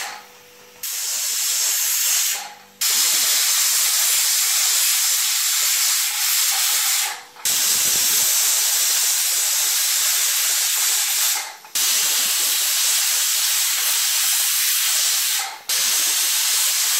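Pressure cooker whistling: steam hissing hard out of the weight valve on its lid, the sign that the cooker is at full pressure. The hiss comes in about five long stretches, each broken off sharply by a brief silence.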